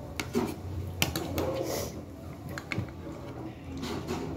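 Metal fork and spoon clinking and scraping against a plate of rice, with several sharp clinks, most of them in the first three seconds.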